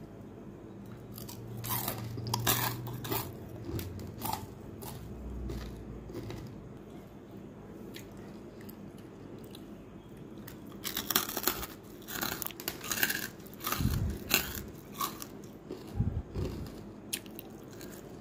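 Crispy deep-fried potato balls crunching as they are bitten and chewed, in two spells of sharp crackles, with a couple of dull low thumps in the second spell.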